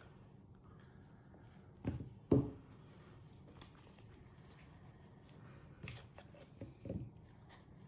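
A trading card box being handled: a few soft knocks and rubs of cardboard, the loudest pair about two seconds in, over quiet room tone.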